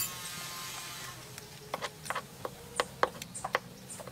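Eating sounds close to the microphone: a run of irregular short clicks and smacks from chewing, starting about a second and a half in, over a faint low hum.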